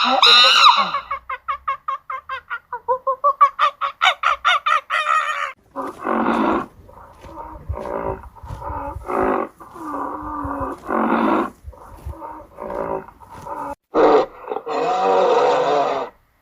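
Animal calls: a rapid run of short pitched calls, about six a second, for the first five seconds, then a series of longer, louder calls.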